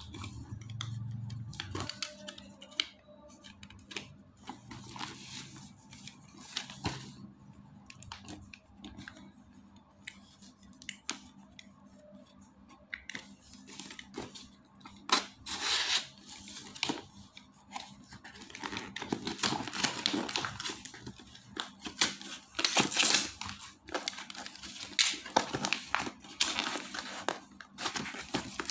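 A utility knife slicing and scraping through packing tape and plastic wrap on a cardboard shipping box, with tearing and crinkling of the wrap as it is pulled open. The sounds come in irregular strokes and get louder and busier about halfway through.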